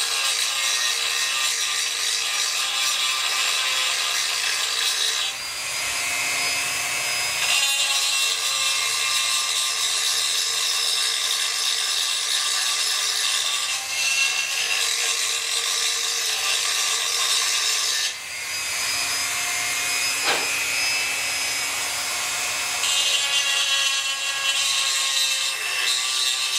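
Dremel 4000 rotary tool running at medium speed, its porting bit grinding the ports of a Chinese 80cc bicycle-engine cylinder during port matching: a steady whine over a grinding rasp. It eases off briefly twice, about five seconds in and again about eighteen seconds in.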